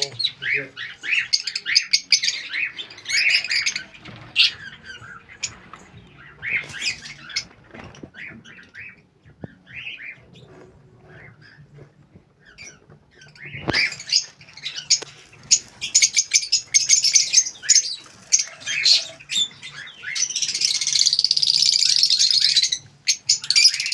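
Lovebirds chirping and squawking in a rapid series of short high-pitched calls. The calls thin out for a few seconds in the middle, then come thick again, with an unbroken high-pitched chatter for about three seconds near the end.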